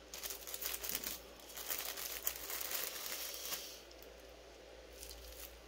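Plastic packaging of a paper-quilling tool kit crinkling and rustling as it is handled, with many small crackles, stopping about three and a half seconds in.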